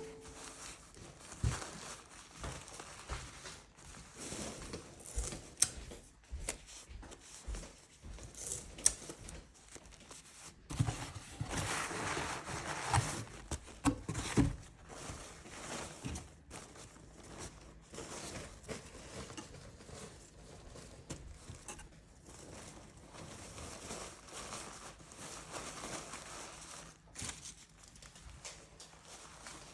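Handling of packaging for shipping orders: rustling and crinkling of wrapping material, with scattered light knocks and a louder, denser stretch of rustling about eleven to fourteen seconds in.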